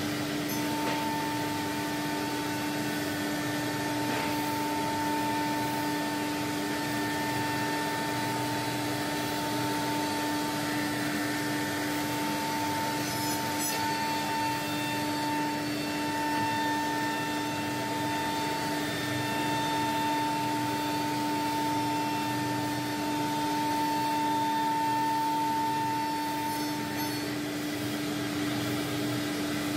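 CNC nesting router running: a steady spindle whine over the rush of its dust extraction as it machines a wooden board.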